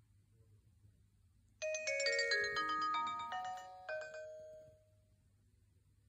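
Lenovo TD16 mobile phone playing a short preloaded melody through its small speaker: a quick run of clear notes that starts about one and a half seconds in, steps mostly downward, and ends with a last note about four seconds in that dies away.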